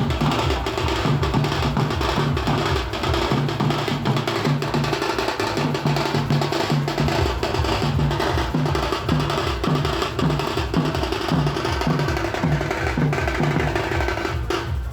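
Indian wedding dhol drums beating a fast, steady rhythm, with deep bass strokes under sharp treble slaps.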